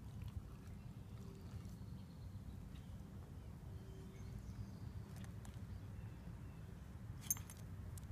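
Quiet outdoor ambience: a steady low rumble with a few faint high chirps, and one sharp click about seven seconds in.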